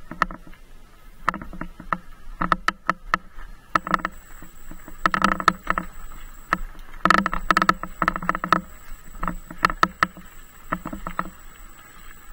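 Bicycle rattling and clattering over rough off-road ground: irregular runs of sharp clicks and knocks, bunched in clusters as the bike hits bumps.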